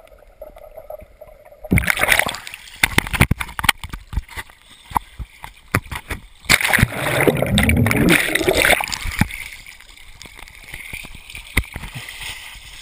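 Muffled underwater water noise, then a little under two seconds in the waterproof camera breaks the surface of a swimming pool. After that come close, irregular splashing and sloshing of water around a swimmer, with drips and water running over the camera, loudest for a couple of seconds in the middle.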